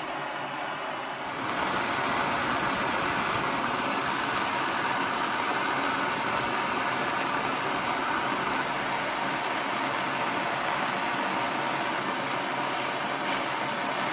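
Handheld gas torch hissing steadily as its blue flame heats an aluminium tube at the bend to soften it for bending. The hiss grows louder about a second and a half in, then holds steady.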